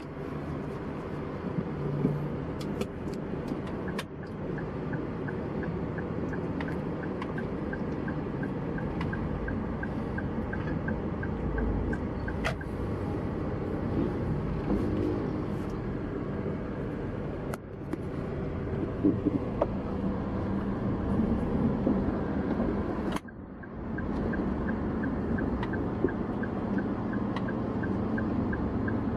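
Car engine running at low speed, heard from inside the cabin, with the turn-signal indicator clicking a few times a second in two stretches as the car turns in.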